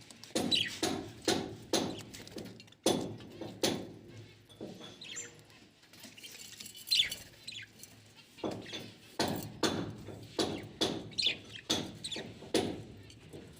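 Budgies pecking at soft food: a run of sharp beak knocks, about two a second with short pauses, with a few brief high chirps.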